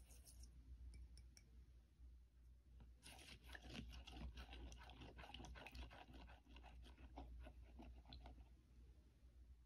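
Sugar tipped into warm milk with a few faint ticks, then a silicone spatula stirring it in a plastic bowl: a quick run of soft scraping strokes starts about three seconds in and fades near the end, the gritty scrape of sugar not yet dissolved.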